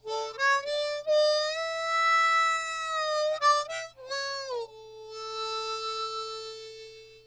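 Solo harmonica tune as intro music: a few short notes with slides between them, then one long held low note that fades out near the end.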